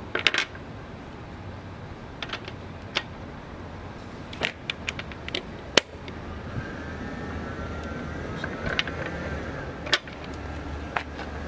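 Metal clinks and taps as a breaker bar, digital torque adapter and socket are fitted onto a motorcycle's rear axle nut: a string of short sharp clicks, the sharpest a little before the middle. A faint steady hum comes in from about halfway.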